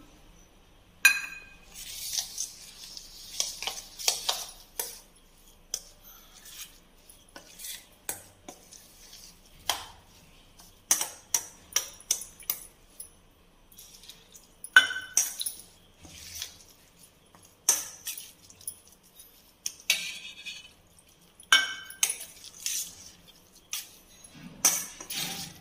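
A little water poured into a stainless steel bowl near the start, then a steel spoon stirring a thick semolina-and-curd batter in the bowl. The spoon scrapes and clinks against the metal at irregular intervals.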